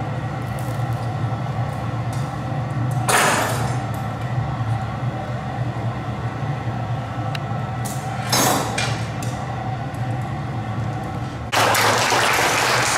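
Steady low roar of a glassworks furnace, with two brief rushes of noise about three and eight seconds in. Near the end an audience breaks into applause.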